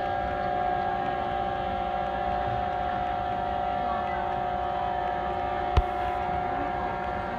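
Steady electronic siren sound effect from a small ride-on police motorcycle, two fixed tones held without rising or falling. A single sharp knock about six seconds in.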